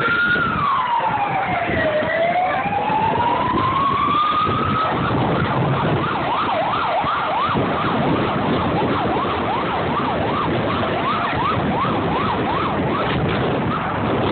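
Emergency vehicle siren in a slow wail, rising and falling, that switches about five seconds in to a fast yelp of quick rising sweeps, over steady city traffic noise.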